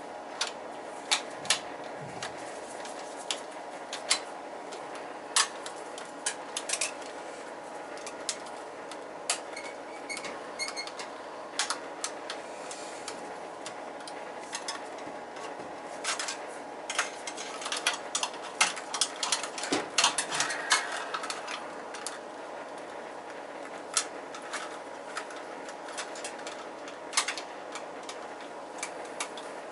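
Scattered small metallic clicks and clinks of hand tools, screws and wiring on an oil boiler's main control as the faulty control is being taken off, with a busier run of clatter around the middle. A steady low hum sits underneath throughout.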